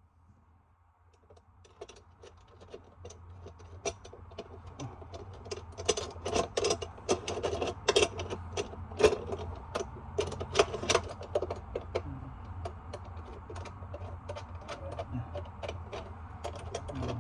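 Rapid, irregular metallic clicks, scrapes and rattles of disposal mounting hardware and tools being handled under a sink, busiest in the middle, over a steady low hum.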